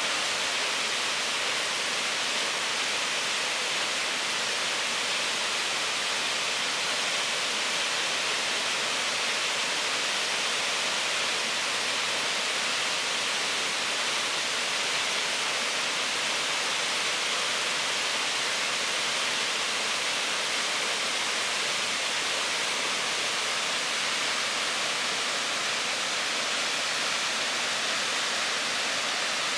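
River water rushing through a narrow rocky gorge below a dam after torrential rain: a steady, even hiss of fast, turbulent water with no breaks.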